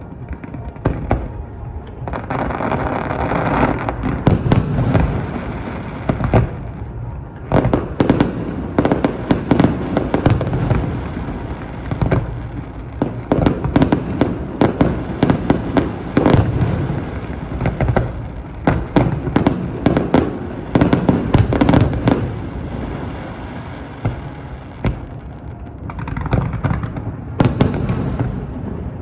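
Aerial fireworks display: many shell bursts in quick succession, sharp reports overlapping with stretches of dense crackle.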